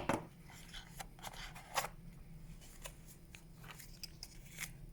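Phone accessories being handled and taken out of their box packaging: a sharp click at the start, then scattered light taps, crinkles and rustles, the loudest about two seconds in.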